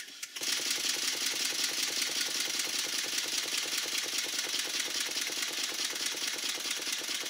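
Old twin-cylinder model steam engine running fast on compressed air at 45 psi in its first air test after rebuilding, a rapid, even exhaust beat that starts about half a second in and holds steady.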